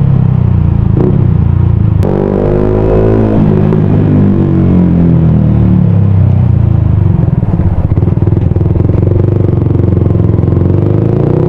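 Yamaha Sniper 155's single-cylinder four-stroke engine running loud through an aftermarket TRC exhaust while riding at speed. About two seconds in there is a sharp break, after which the engine note climbs as it accelerates. It climbs again near the end.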